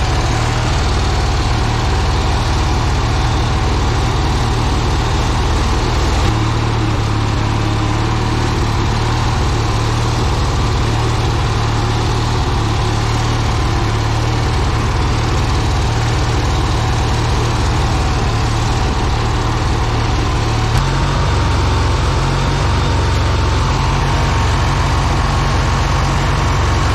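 Riding lawn mower's small engine running steadily as the mower is driven, with a thin whine above the engine hum that steps up slightly in pitch about three-quarters of the way through.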